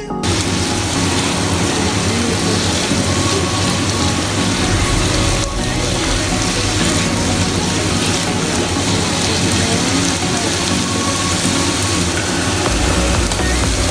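Diced carrots and celery sizzling in hot oil in a nonstick frying pan as they are stir-fried with a spatula, over background music with a steady bass.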